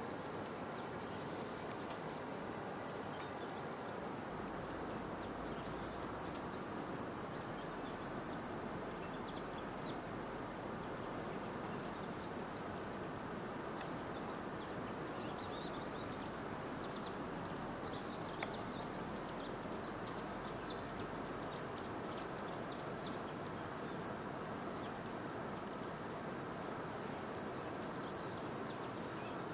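Steady outdoor ambient noise, with faint high chirps scattered through it.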